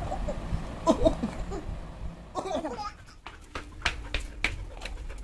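A few short bits of a voice, including a laugh, then from about three seconds in a run of quick, uneven clicks or taps.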